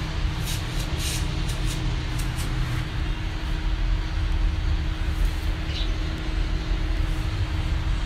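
Samsung microwave oven running a heating cycle with its outer cover removed: a steady low hum from the transformer and fan, with a thin steady tone over it. A few faint ticks sound in the first few seconds.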